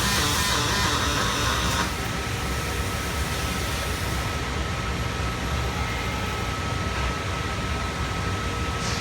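Rock music with distorted electric guitar cuts off about two seconds in. It leaves steady machine noise from the robotic welding cell, with a thin, high whine held throughout.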